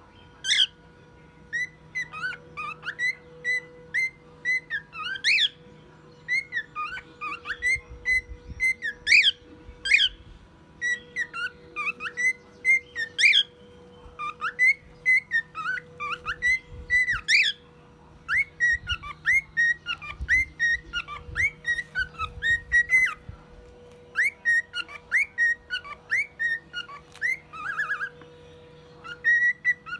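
Male cockatiel whistling a long run of short, clear notes and quick upward-sweeping glides, in phrases with short pauses between them.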